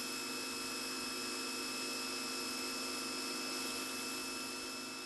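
Electric pressure washer running steadily with the spinning patio cleaner attachment: a motor hum and whine over the hiss of spraying water, beginning to fade near the end.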